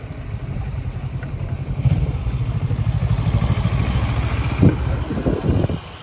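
Wind buffeting a moving microphone: a loud, low, fluttering rumble that grows louder about two seconds in, with a few stronger gusts near the end.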